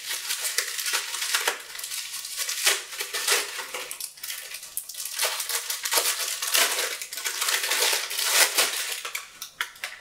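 Bubble-wrap packaging crinkling and crackling in the hands as a leather card case is worked out of it, a dense run of irregular sharp crackles that dies away near the end.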